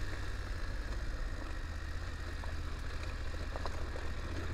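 BMW F850GS Adventure's parallel-twin engine running with a steady low drone while the bike rolls along a gravel track, with a few faint ticks about three seconds in.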